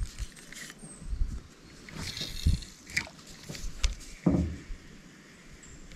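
Scattered knocks, taps and rustles from a spinning rod and reel being handled in a jon boat, with a louder knock a little past four seconds.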